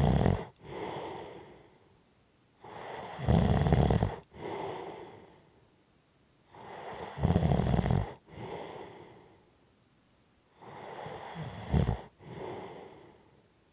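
A person snoring heavily in slow, even breaths, about one every four seconds. Each breath builds to a loud, low snore, breaks off briefly, then ends in a softer breath that fades out. The last snore is weaker than the others.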